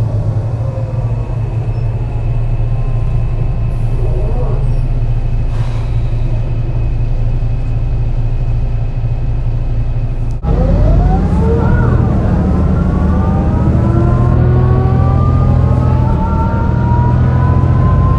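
MAN NL202 CNG bus engine pulling uphill with a bad misfire, under a whine from the ZF Ecomat five-speed automatic gearbox. About ten seconds in the sound drops out for a moment, then comes back louder and the gearbox whine rises steadily in pitch.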